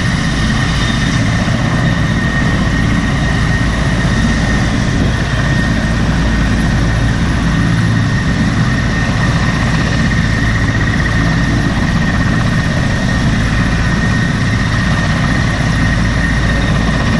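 Helicopter turbines and rotor running at full power before lift-off: a loud, steady rush of rotor noise and low rumble under a constant high turbine whine.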